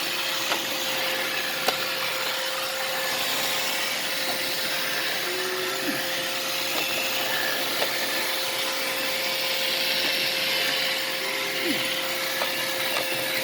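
Roomba robot vacuum running: a steady whir with a high hiss and a constant humming tone, broken by a few light clicks.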